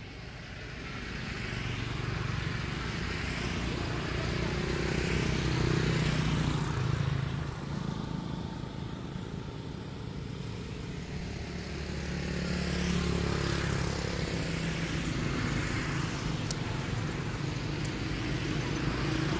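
Motor vehicles driving past, a low engine hum that swells and fades twice, loudest about six seconds in and again around thirteen seconds.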